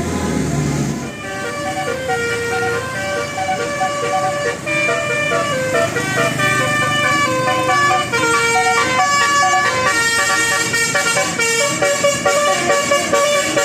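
Bus 'telolet basuri' musical air horn playing a quick melody, one horn note after another changing several times a second. A brief low engine rumble sits under the first second.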